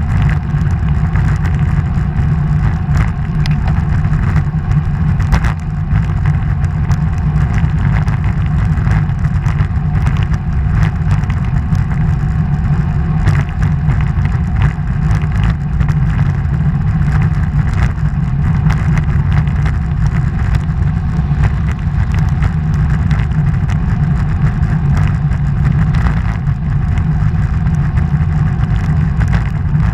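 Motor vehicle driving through a road tunnel: a steady, loud low rumble of engine and tyre noise, broken by many short thumps.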